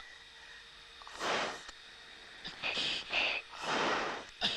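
A fighter pilot's heavy breathing heard over the oxygen-mask microphone on the cockpit intercom: four or five loud, hissing breaths, about one a second, as he pulls G in a turning dogfight.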